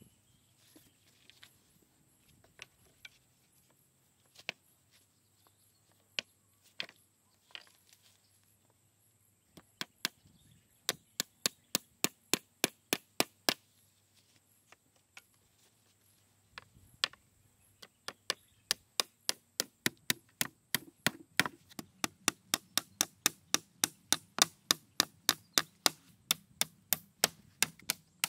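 Hatchet striking wooden poles: a few scattered knocks at first, then quick runs of sharp strikes at about three a second, the second run lasting the last ten seconds or so.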